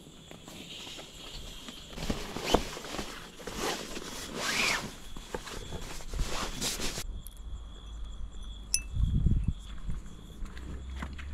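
A WAQ self-inflating camping mattress being unrolled and handled: its nylon fabric rustles and crinkles, with scattered clicks. About seven seconds in, the sound cuts to a quieter night scene with a steady high insect trill and a low thump or two.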